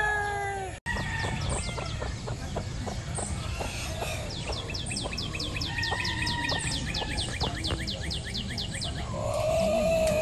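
Birds chirping in the countryside, with a fast run of quick, evenly repeated chirps in the middle. A rooster's crow tails off at the start, and another drawn-out call, likely a rooster, rises near the end.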